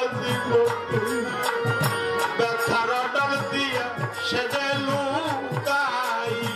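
Folk music: a melody sung or played over tabla-like hand-drum strokes, with a held note underneath.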